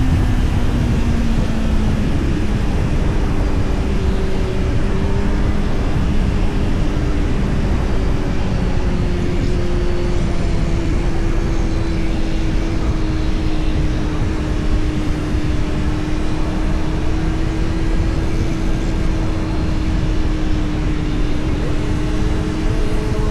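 Kawasaki Z900's 948 cc inline-four engine running at fairly steady revs while the bike cruises, its pitch easing down slightly early on and then holding level. Heavy wind noise rushes over the microphone underneath.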